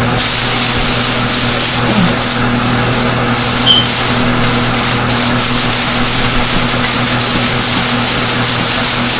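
Stove fan running with a steady whir and hum, with some light rustling of a plastic bag of flour as chicken is shaken in it.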